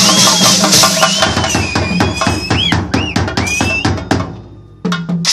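Chenda drums and a drum kit with cymbals played together in a fast ensemble. The playing breaks into a run of separate accented strokes that die away about four seconds in, then one last hit just before the end.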